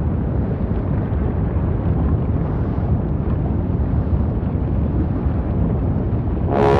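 Steady, deep rumbling noise of an erupting volcano with no clear pitch. Just before the end, a sustained chord of music comes in over it.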